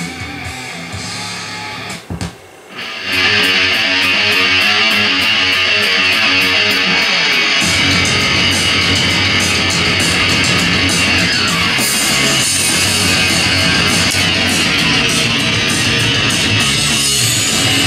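Guitar-driven music played over a home surround-sound system's speakers. The music dips briefly about two seconds in, then comes back louder, and a deep bass part joins a few seconds later.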